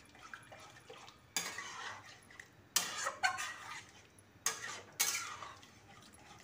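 Spatula stirring thin black-chickpea gravy in a metal pan, knocking and scraping against the pan in a series of sharp strokes, about six in all, between quieter stirring.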